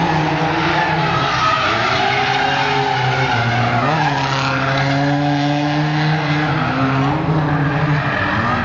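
Toyota AE86 being drifted: its engine held at high revs, the pitch wavering up and down, with tyres squealing.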